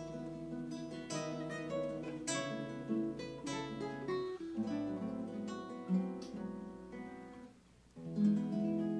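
Acoustic guitar playing the instrumental close of a song in 6/8, plucked and strummed notes ringing. It falls almost silent about seven and a half seconds in, then a chord rings out near the end.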